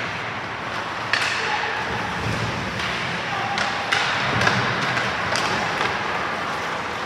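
Ice hockey play: a steady wash of skate scraping and rink noise, broken by a few sharp stick-and-puck knocks about a second in, near four seconds and again around five and a half seconds.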